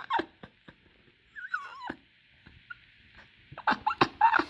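A dog whining briefly: a high whine falling in pitch about a second and a half in, with a shorter squeak later, amid light clicks and taps of cans being handled.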